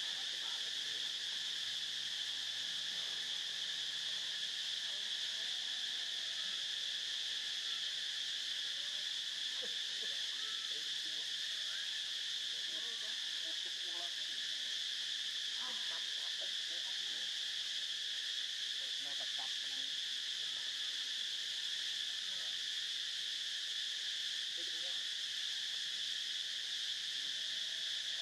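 Steady, high-pitched insect chorus droning without a break, with faint short sounds scattered beneath it.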